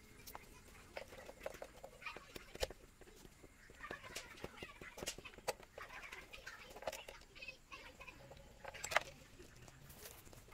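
Scattered light clicks and taps of hand tools and wires being worked on a wooden meter board, the sharpest about two and a half seconds in and near the end.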